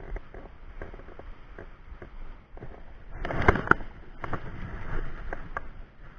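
Sea water washing against shore rocks, with scattered small clicks and knocks. About three seconds in there is a louder rush of splashing noise.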